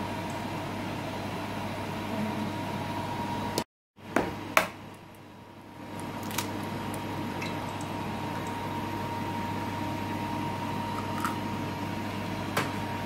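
Pakora batter of potato, onion, red lentils and gram flour being mixed by hand in a plastic bowl, with a soft squishing, over a steady electrical hum. The sound cuts out completely for a moment about four seconds in, followed by two sharp clicks.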